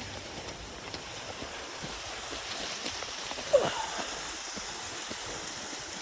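Steady rush of a waterfall and its stream. A brief, sharp pitched sound cuts through about three and a half seconds in.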